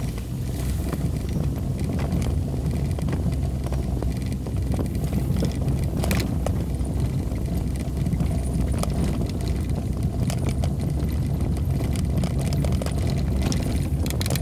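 Vehicle driving on a rough unpaved road: a steady low engine and road rumble with frequent small knocks and rattles, one sharper knock about six seconds in.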